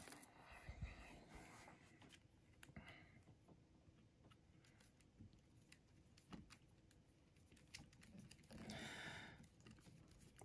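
Near silence with faint, scattered small clicks of a hand screwdriver turning the screws that hold a speaker tweeter in its baffle. A brief soft rush of noise near the end.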